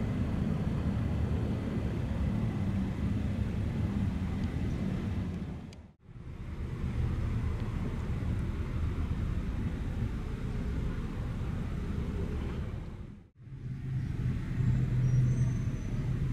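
Low, steady outdoor vehicle rumble. It dips briefly to near quiet about six seconds in and again about thirteen seconds in, and is a little louder near the end.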